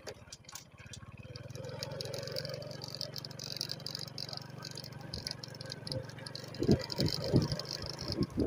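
A motor running steadily, growing louder over the first couple of seconds and easing off after about five seconds.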